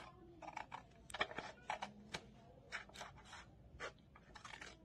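Scissors cutting through a sheet of paper: a string of faint, short, irregular snips.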